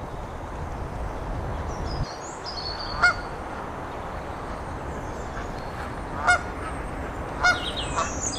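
A goose honking three times, short loud calls a few seconds apart, with smaller birds chirping high and thin over a steady background noise.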